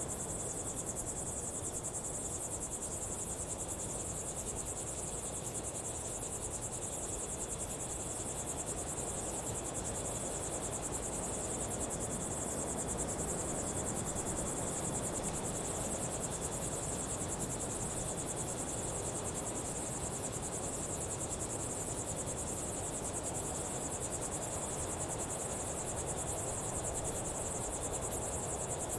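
Daytime desert insect chorus: a dense, continuous high-pitched insect trill, with a fainter steady insect tone lower down, over an even background hiss.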